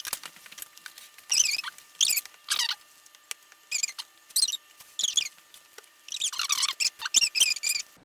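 Short, high-pitched squeaks, about ten of them at irregular intervals, from a spatula rubbing against the bowl while stirring thick slime mixture.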